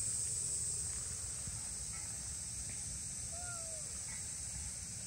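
A two-month-old kitten gives a single faint mew, short and falling in pitch, about three and a half seconds in. It is the anxious call of a kitten separated from its mother. A steady high hiss runs underneath.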